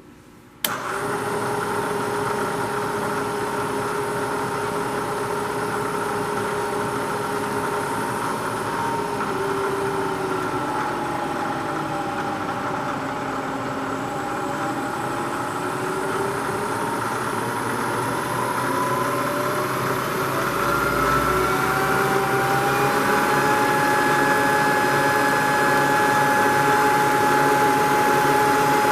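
Bridgeport Series I vertical milling machine's 2 HP spindle motor switching on with a click about a second in, then running steadily. Its pitch slowly dips, then rises and settles higher about two-thirds of the way through as the spindle speed is changed.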